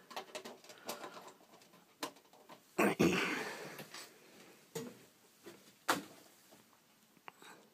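Handling noise: a few scattered clicks and knocks, the loudest about three seconds in, and another sharp click near six seconds.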